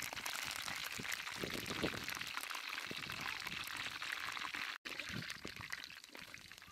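Water pouring and splashing: a steady hissing rush with fine crackle, which cuts out briefly just before five seconds in.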